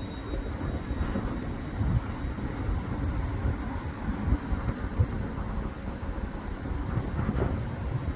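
Passenger train moving along the line through the station: a steady, uneven low rumble with no distinct horn or tone.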